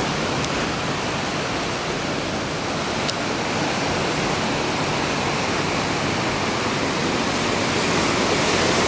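Steady rushing noise of surf breaking on a sandy beach, an even wash without clear swells, a little louder near the end.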